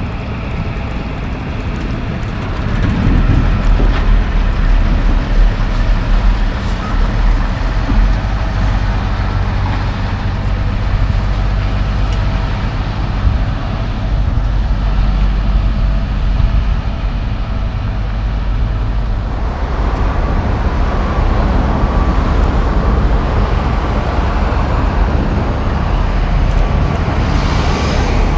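A heavy dump truck drives past on the road with a deep diesel rumble, followed by lighter road traffic. About two-thirds of the way through, a steady engine drone with a faint whine takes over.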